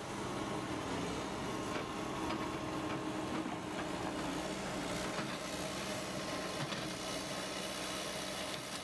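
An engine of heavy machinery running steadily, a continuous hum, with a few faint knocks.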